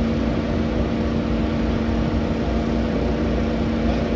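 Fire engine's diesel engine running steadily at raised revs, a constant hum over a low rumble.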